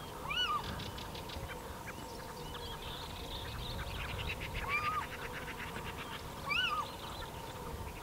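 Little owl (Athene noctua) calling three times, each a short call that rises and falls in pitch. A fast run of ticks, like a rattle, sounds briefly in the middle.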